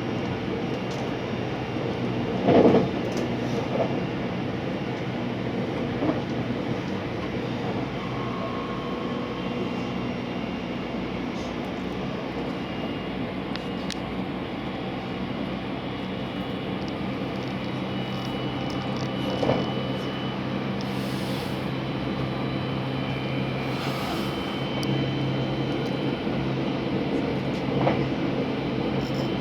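JR West 683 series electric express train running at speed, heard from inside the passenger car: a steady rumble with an even hum, broken by a few short knocks, the loudest about two and a half seconds in.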